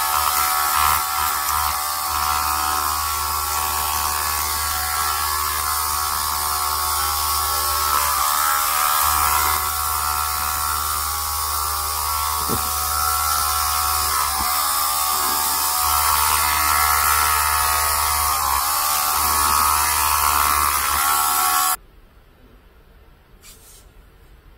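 Small electric hobby drill spinning a 0.5 mm bit, drilling holes in a 1/12-scale model brake disc: a steady high motor whine that dips briefly in pitch several times as the bit bites. It stops abruptly near the end.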